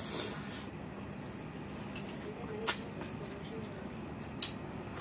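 Eating sounds of a man chewing a mouthful of leafy greens and rice, close to the microphone, with two sharp clicks, one a little past halfway and one near the end.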